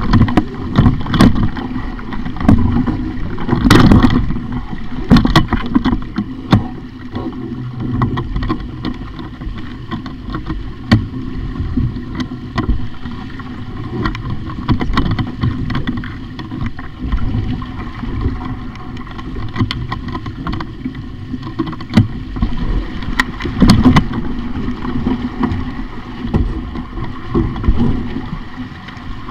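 Sailing dinghy under way: water rushing and slapping along the hull with wind on the microphone, and frequent sharp knocks from the boat, the loudest about four seconds in and again near the end.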